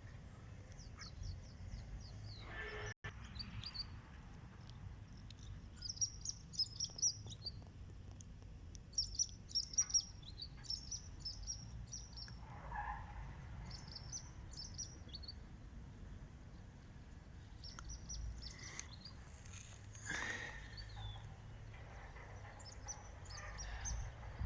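Small birds chirping in quick clusters of short high notes over a steady low outdoor rumble.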